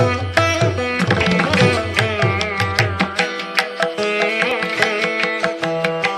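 Indian-style instrumental background music: a plucked string instrument playing bending melodic lines over a tabla-like drum beat.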